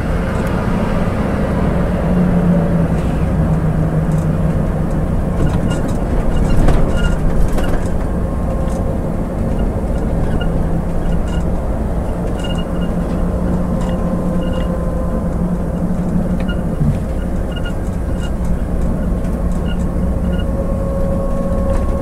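Scania coach's diesel engine and road noise heard inside the cab, a steady drone as the coach descends a steep grade in third gear on engine braking, revs held in the tachometer's blue band. It gets briefly louder about six to eight seconds in, with occasional light ticks throughout.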